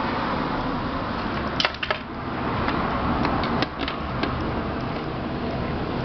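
Philco multiprocessor's motor base running steadily, with a few sharp clicks and a rattle from its loose parts, a sign that the base's parts have worked loose.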